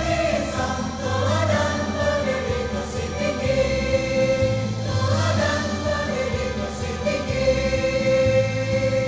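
A women's choir singing a song, with their voices rising and falling in a sustained melody. Under the voices runs an instrumental accompaniment of held low notes that change every second or so.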